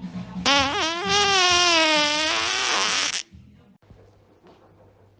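One long fart, about three seconds, with a buzzing steady pitch that wobbles at the start, sags slightly, then cuts off abruptly.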